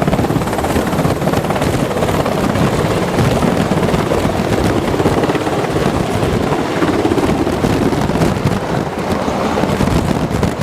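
Military helicopter or tiltrotor running close by: a loud, steady noise of rotor wash and turbine engines.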